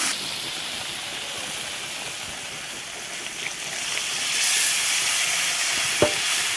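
Tomato and spice mixture sizzling softly in a hot steel wok. About four seconds in, rasam liquid poured from a clay pot into the hot pan raises a louder hiss of sizzle and steam. A single sharp tap comes near the end.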